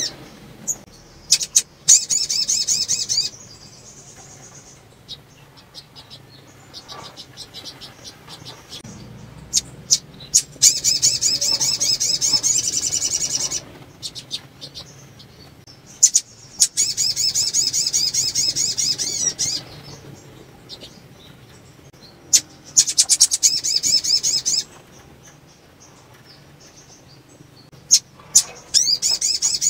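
Caged female sunbird singing in about five bursts of rapid, high-pitched trilling, each lasting two to three seconds, with short chirps and light perch-hopping sounds in between. It is presented as the call of a female in breeding condition, used to get males to sing.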